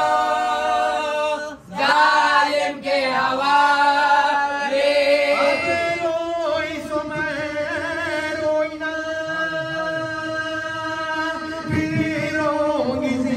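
Voices chanting a nauha, a Shia mourning lament, in long drawn-out notes, with a short break about a second and a half in.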